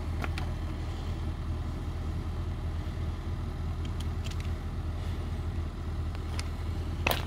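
Range Rover Sport's engine running at low revs in a steady low drone as the SUV crawls over a rocky trail, with a few sharp clicks and knocks from stones, the loudest near the end.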